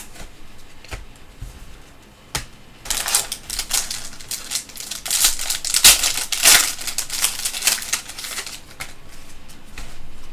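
Trading-card pack wrapper crinkling and tearing as it is opened and cards are handled, a dense crackly run in the middle after a few light clicks.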